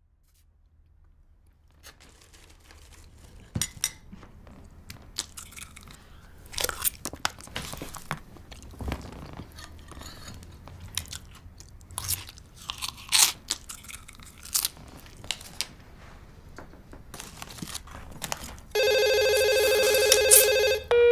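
Irregular crunching and clicking noises, like chewing, then, about three seconds before the end, a loud steady electronic ring, like a phone ringtone, which lasts about two seconds.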